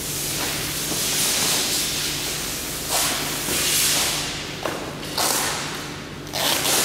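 Plastic wrapping and packing paper being handled, crinkling and rustling in a series of short bursts, several starting abruptly in the second half, over a faint steady hum.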